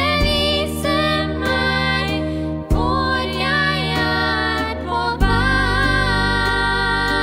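Young girls' voices singing a song over a sustained instrumental accompaniment. The accompaniment's low notes change about five seconds in.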